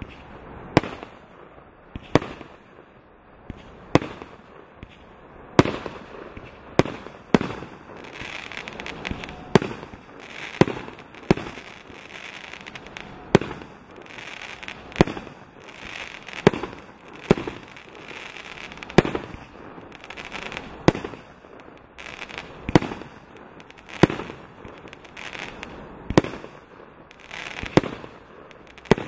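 A 64-shot, 30 mm angled garden fireworks cake firing shot after shot. There is a sharp report about every second and a half as the tubes fire their star shells, with a hiss of burning stars between the shots.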